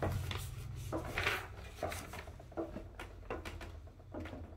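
Footsteps going down wooden basement stairs: a series of footfalls, roughly one to two a second, growing fainter as the walker descends.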